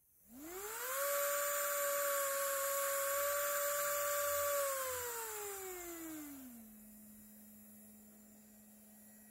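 Small brushed DC motor whining under a potentiometer and MOSFET speed controller. Its pitch rises over the first second as it speeds up and holds steady for a few seconds. It then glides down as it is slowed, leaving a faint low hum near the end.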